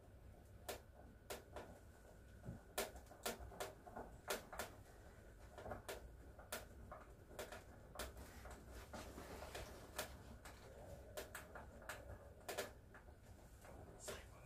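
Small hinge screws being driven by hand with a screwdriver into a wooden box: a string of irregular sharp clicks and small knocks, a few of them louder.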